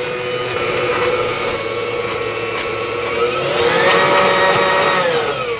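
Electric stand mixer running with its wire whisk in a steel bowl of brownie batter: a steady motor whine that rises in pitch about three seconds in as the speed is turned up, holds, then winds down near the end.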